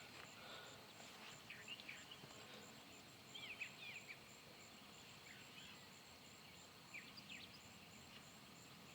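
Faint outdoor ambience near silence: a few scattered bird chirps in short clusters, over a steady pulsing insect trill.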